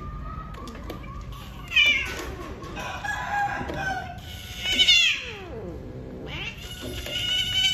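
Domestic cats mating, with drawn-out yowls: loud calls about two and five seconds in, the second falling in pitch, and a long call starting near the end.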